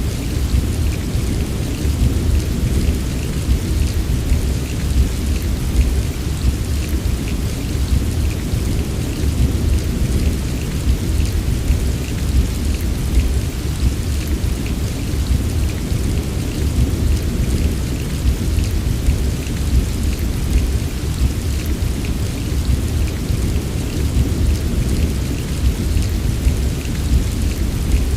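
Heavy rain falling steadily, a dense patter of drops over a deep, continuous rumble.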